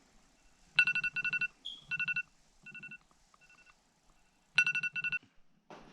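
Electronic alarm beeping in quick bursts of about four beeps, with pauses between the bursts; a few of the bursts are fainter.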